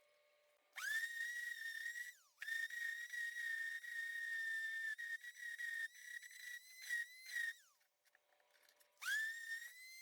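A small high-speed power tool whining, switched on and off three times. Each time its pitch climbs quickly as it spins up, holds steady with slight wavers under load, and slides down as it winds down.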